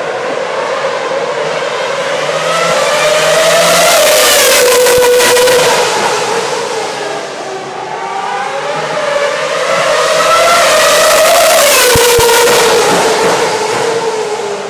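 Racing car engines at high revs going past on the circuit, swelling twice, about four seconds in and again about eleven seconds in, with the pitch dropping as each goes by.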